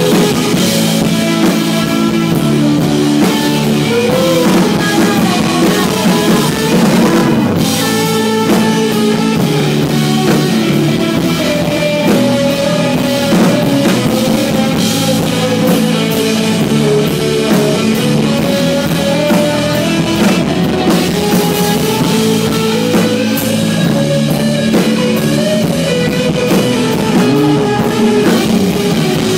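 Live alternative-rock band playing loud, electric guitars over a drum kit, in a rough audience recording.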